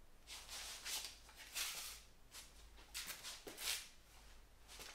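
Soft rustling and swishing of clothing and a rifle sling as an AR-style rifle is swung up and shouldered, several swishes in a row, with a faint knock about three and a half seconds in.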